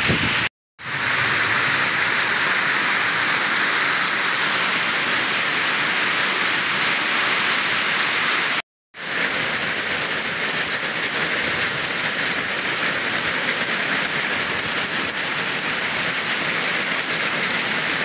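Heavy rain pouring down in a steady hiss. It cuts out briefly twice, about half a second in and about halfway through.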